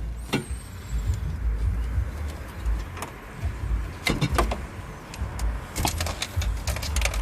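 Scattered clicks and knocks of car dashboard parts being handled during removal of the stereo, coming in small clusters near the middle and end, over a steady low rumble.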